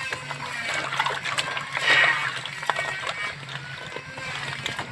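Hands scrubbing live land crabs in a plastic basin of water: water sloshing and splashing, with crab shells clicking and knocking against each other. The loudest splash comes about two seconds in.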